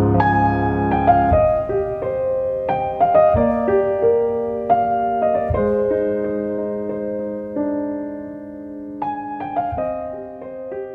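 Soft background piano music: single notes and chords struck and left to ring out, growing quieter toward the end.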